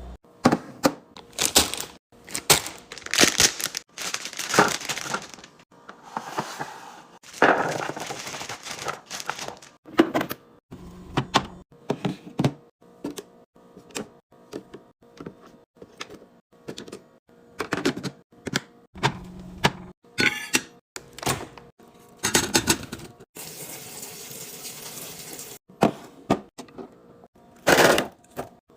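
Knocks, clicks and clatter of food containers, bottles and packaging being handled, opened and set down while a fridge is restocked. About three-quarters of the way through there is a couple of seconds of steady hiss.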